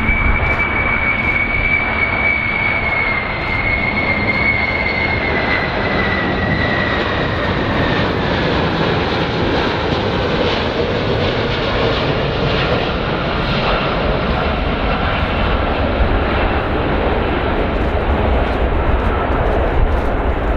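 Four General Electric CF6 turbofan engines of a Boeing 747-200 (VC-25A) on landing approach, running with a steady, loud jet noise. A high fan whine sits over it and falls slowly in pitch over the first several seconds as the jet flies past.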